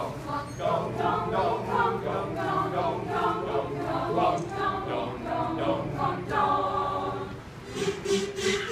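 Mixed-voice community choir singing a cappella. Near the end the singing breaks off and a quick run of short, noisy strokes begins.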